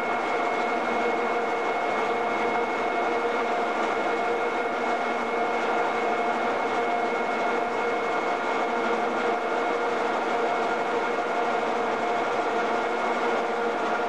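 Steady machinery hum from a railway bogie-exchange installation, with several constant high whining tones over it.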